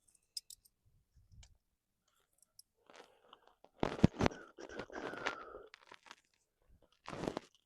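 Hunting gear being handled while a camera arm is pulled out and its strap wrapped around a tree: crunching rustles, scrapes and sharp clicks, mostly in a busy stretch about four seconds in, with another brief rustle near the end.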